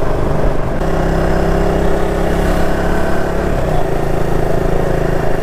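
Motorcycle engine running steadily under way, its note changing about three and a half seconds in.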